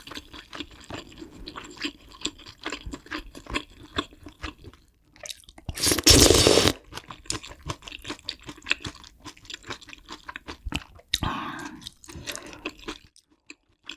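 Close-miked chewing and wet mouth sounds of someone eating kimchi stew with ramyeon noodles. A loud slurp of noodles and broth from a spoon about six seconds in, and a shorter slurp near eleven seconds.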